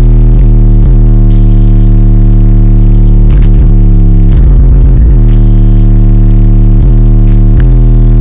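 Car audio subwoofers playing bass-heavy music very loud: deep held bass notes that shift in pitch every second or so, loud enough to keep the recording at full level.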